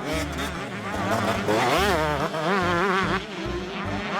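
A motorbike engine revving up and down in quick repeated swells, over background music with a steady bass line.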